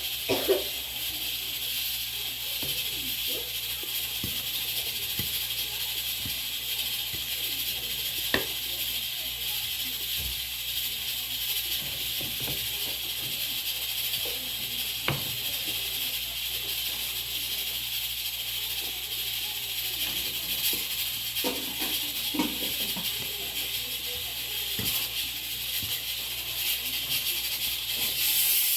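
Steady hiss of steam from a pot cooking on the stove, with a few light clicks of cutlery on a plate.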